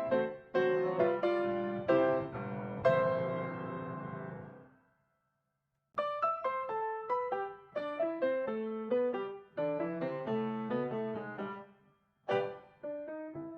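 Background piano music, a quick run of single notes. It breaks off for about a second near the middle, then resumes.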